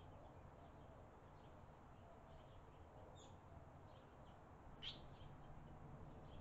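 Faint, short high chirps from barn swallows at their mud nest as an adult lands at it. A sharper call comes about three seconds in, and the loudest, a brief high call, comes near five seconds in.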